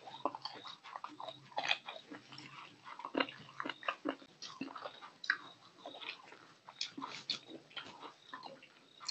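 Close-miked mouth sounds of a man eating rice and curry by hand: chewing and lip-smacking, a steady run of short, irregular wet clicks.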